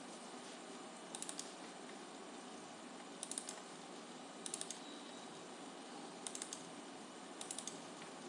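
Computer mouse button double-clicking: five quick clusters of sharp clicks, a second or two apart, over a faint steady background noise.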